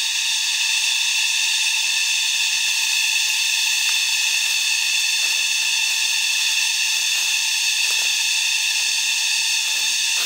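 Loud, steady, high-pitched buzzing chorus of cicadas in the forest canopy, with faint crunching of footsteps in dry leaf litter beneath it.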